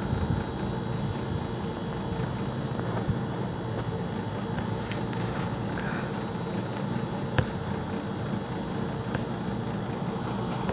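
Steady background hum of machinery or distant traffic, with a few faint clicks and one sharper click about seven seconds in.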